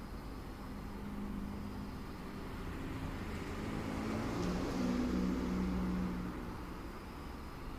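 A car passing along a residential street. Its engine and tyre noise swell to a peak about five seconds in, then fade away.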